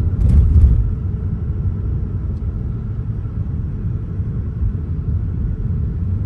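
Steady low rumble of a car driving, engine and tyre noise heard from inside the cabin, with a brief louder noise about half a second in.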